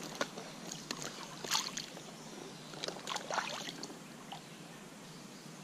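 Water splashing and sloshing around a landing net held in a shallow trout stream as a hand works in the net, with short splashes just after the start, at about a second and a half and around three seconds in, over the steady run of the stream.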